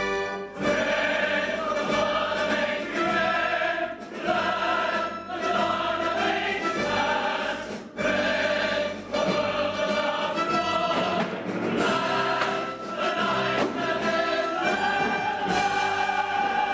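Musical-theatre ensemble singing in chorus over a pit orchestra, recorded live from the audience.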